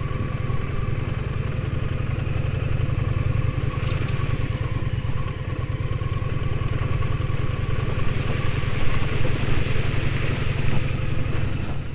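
Motorcycle engine running steadily as the bike rides along a rough, puddled dirt track, with a continuous low rumble. The sound gets a little louder and more uneven in the last few seconds.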